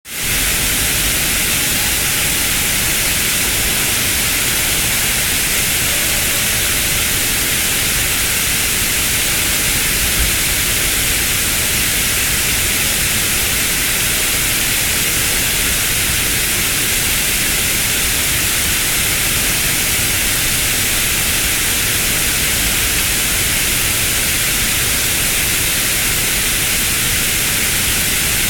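Water cascading down a stepped wall fountain, splashing over its many ledges in a steady, even hiss that is strongest in the high range.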